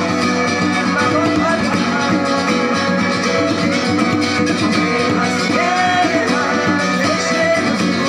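Live acoustic band playing: violin, plucked guitars and a djembe together in an ensemble piece, with some sliding violin notes.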